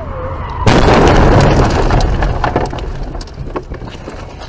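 Car collision heard from inside the cabin through a dashcam microphone: a sudden loud crash about a second in, followed by a second or so of noisy crunching that fades into scattered knocks and rattles.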